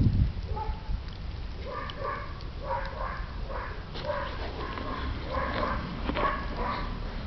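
Two dogs, a Tibetan mastiff and a Tibetan terrier, playing tug with a toy, one of them giving a string of short whiny play noises, two or three a second, over a steady low rumble.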